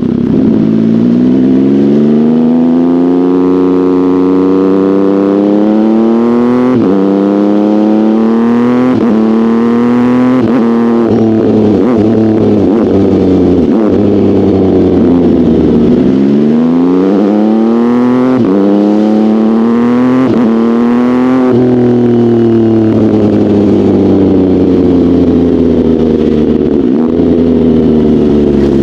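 Sport motorcycle engine accelerating hard through the gears, its pitch climbing and dropping sharply at each upshift, then winding down as the bike slows. It pulls up through the gears again and ends in a long, gradual deceleration.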